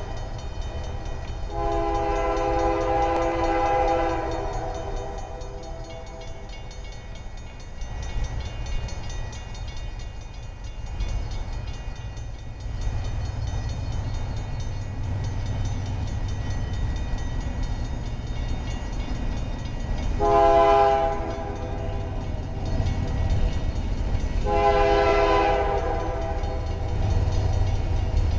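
Distant CN freight locomotive's air horn sounding as the train approaches a grade crossing: a long blast about two seconds in, then a short blast and a longer one near the end, over a steady low rumble.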